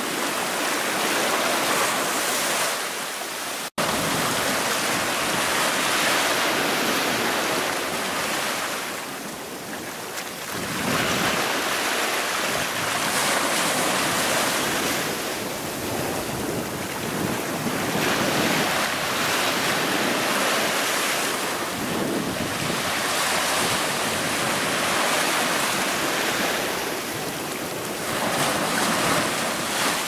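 Small waves breaking and washing up a shelly sand beach: a steady rush of surf that swells and eases every few seconds. The sound cuts out for an instant about four seconds in.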